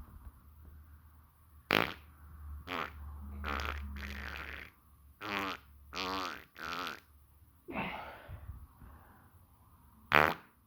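A person farting repeatedly: about eight separate farts, some short and sharp, others longer with a wavering, buzzing pitch, the loudest a sharp one near the end.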